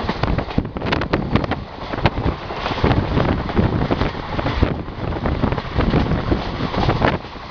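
Wind rushing and buffeting against the microphone over the running noise of a passenger train coach at speed, with irregular knocks and rattles.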